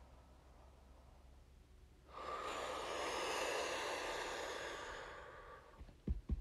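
A woman's long, audible breath out through pursed lips, starting about two seconds in and lasting about three seconds before fading, during a guided deep-breathing exercise. A few short, low thumps come right at the end.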